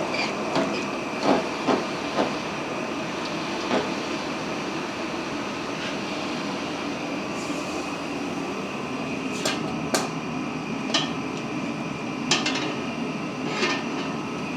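Sharp metallic clinks and knocks, about ten of them at uneven intervals, from 2-inch 1045 steel balls and metal tools being handled during water quenching, over a steady machine hum.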